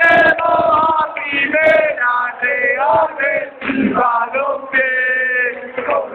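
A crowd of male voices chanting and singing together, loud and close, with several long held notes.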